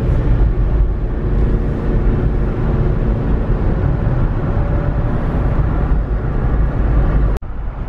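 Car engine and road noise heard from inside the cabin while driving slowly, a steady low rumble. It drops out abruptly for a moment near the end.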